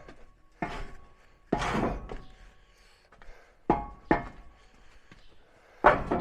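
A series of heavy clunks and knocks, about five in all, as a metal side ramp is worked back into place; one near the middle rings on briefly.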